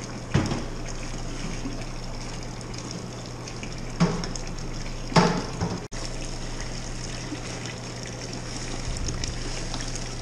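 Hot brewing water trickling and running steadily over a low hum, with a few knocks about half a second, four and five seconds in.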